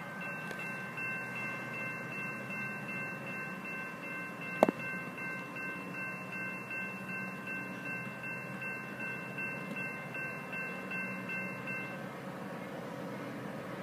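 Railroad grade-crossing bell ringing with steady chime-like tones that stop about twelve seconds in, over the low rumble of a passing freight train. One sharp click about four and a half seconds in.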